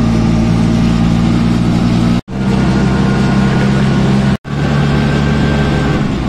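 Auto-rickshaw engine running steadily, heard from the passenger seat while riding. The sound cuts out for an instant twice.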